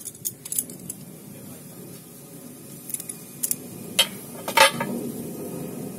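Small metal clinks and taps as a screw and tools are handled against an iron block: a few separate sharp clicks, the loudest about four and a half seconds in.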